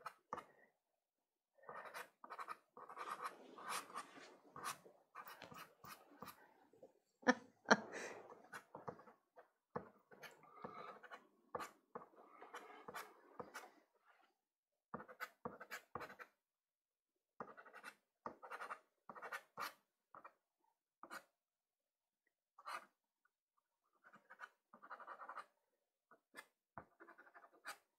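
Soft pastel stick scraping across sanded Pastelmat paper in short, scratchy strokes, in clusters with brief pauses between them.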